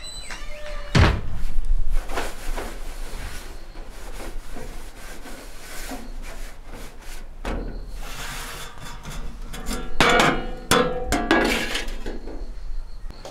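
Handling knocks and thuds, then a cluster of metal clanks with a brief ring about ten seconds in as the round lid of a cast-iron wood-burning stove is lifted off.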